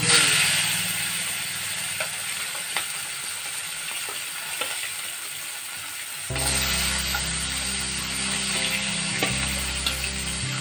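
Olive barb fish frying in hot oil in a nonstick wok: a sizzle starts sharply as the first fish goes in, with small pops and spatula clicks. About six seconds in, the sizzle jumps louder as a second fish is lowered into the oil.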